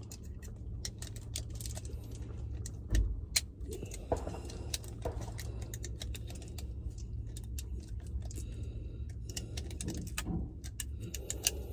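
Small metal items being handled: scattered light clicks and clinks, with a few louder knocks around three to five seconds in, over a steady low rumble.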